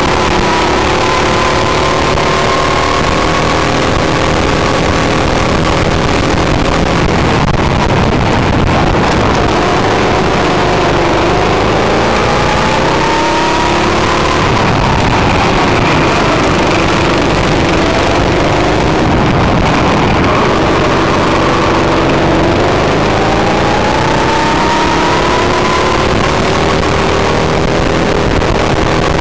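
Go-kart engine heard from on board the kart, its pitch rising and falling several times as the kart accelerates along the straights and slows into the corners, over a loud steady rushing noise.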